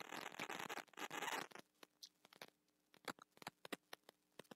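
Faint ratcheting clicks of a computer mouse scroll wheel: a quick run of clicks for about a second and a half, then scattered single clicks as the page is scrolled.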